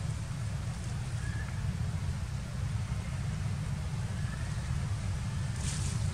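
Steady low rumble, with a short hiss near the end.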